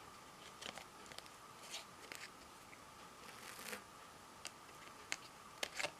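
Light, scattered clicks and rustles of a handful of metal lock picks being handled and shifted about, over a faint steady tone.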